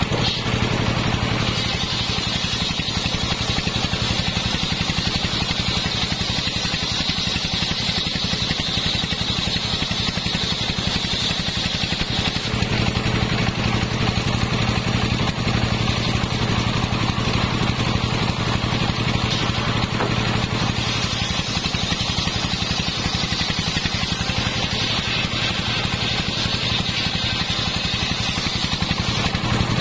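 Large 85 cm circular saw blade ripping sengon boards lengthwise, driven by a steadily running engine whose rapid even pulses underlie the whole cut. The higher cutting sound is strong for the first twelve seconds or so, eases, and comes back for a while near the end.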